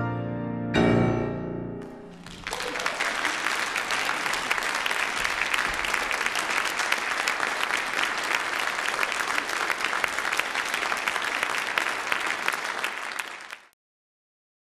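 Steinway grand piano playing the last struck chords of a classical piece, ringing out and dying away, then an audience applauding steadily until the applause is cut off near the end.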